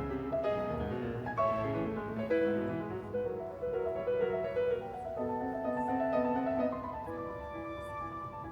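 Slow classical-style music with piano and low bowed strings, notes held and changing every half second or so.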